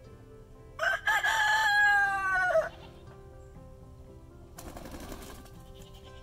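A rooster crowing once, about a second in: one loud call that drops in pitch as it ends.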